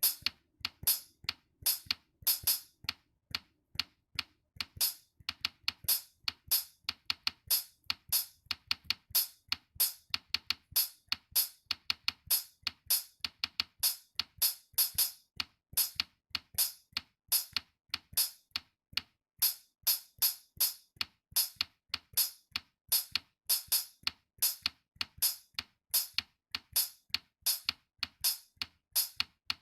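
Background music: an electronic drum-machine beat with a steady run of crisp, bright strikes, several a second.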